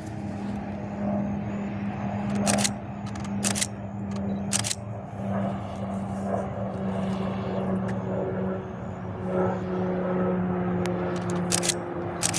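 Pilatus PC-21 turboprop trainer flying a circuit: a steady propeller drone that slowly drops in pitch, over road traffic noise, with several sharp knocks on the microphone.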